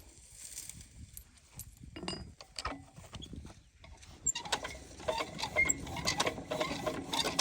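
Metal mechanism clicking and rattling: a few scattered clicks, then from about four seconds in a dense, irregular clatter that grows louder.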